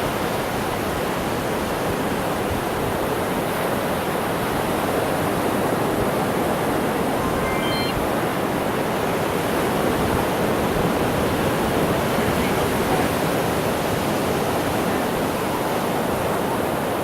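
Steady rushing noise of ocean surf on the beach, with a brief faint high chirp about eight seconds in.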